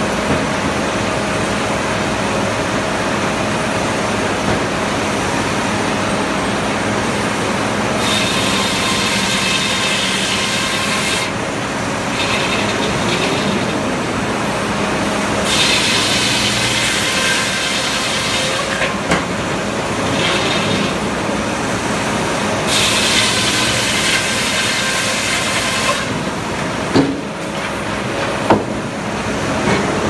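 Frick "0-C" circular sawmill running with a steady hum, its large circular head saw cutting through a log several times, each cut a rasping noise lasting a few seconds. Two sharp knocks near the end.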